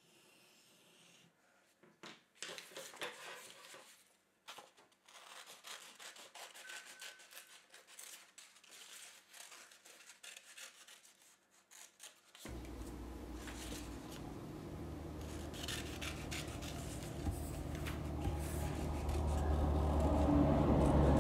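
Scissors cutting through thin coloured card in short irregular snips, with the card rustling and rubbing. About halfway through, a steady low hum comes in and grows louder.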